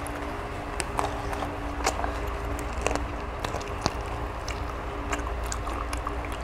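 Scattered small clicks and crunches of people eating boiled chicken by hand, over a steady low hum.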